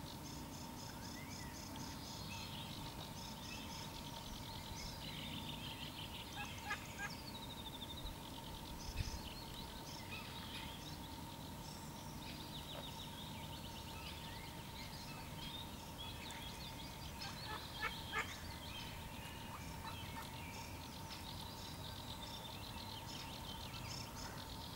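A morning chorus of several songbirds singing overlapping trills and short repeated phrases, over a faint low rumble and a thin steady tone. A few sharp clicks stand out near the middle.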